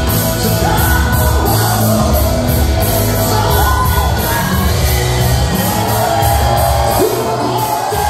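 Live rock band playing loudly through a club PA, with drums keeping a steady cymbal beat under bass and guitar, and a crowd shouting and whooping over it.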